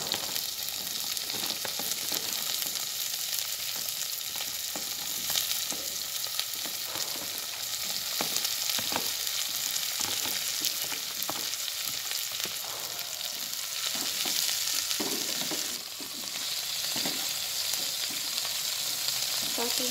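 Sliced green beans, carrots and baby corn sizzling in hot oil, just added to fried garlic, shallots and chilli, with a steady hiss and frequent short scrapes and knocks as they are stirred.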